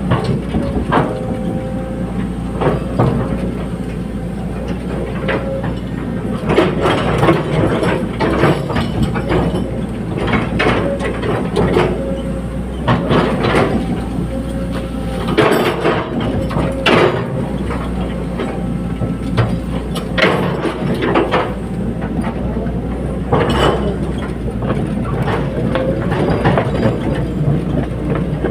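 Caterpillar 320D hydraulic excavator working: its diesel engine drones steadily under load, with frequent irregular metallic clanks and knocks and an on-and-off steady whine.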